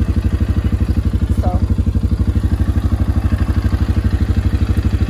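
2020 Suzuki KingQuad 500AXi's 493cc single-cylinder four-stroke engine idling steadily in neutral, an even pulse of about a dozen beats a second.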